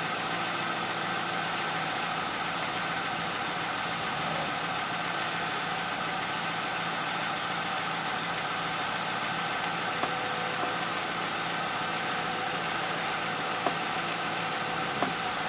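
Ford Crown Victoria Police Interceptor's 4.6-litre V8 idling steadily at about 900 rpm, heard from inside the cabin while the engine is still warming up. A few light clicks in the second half.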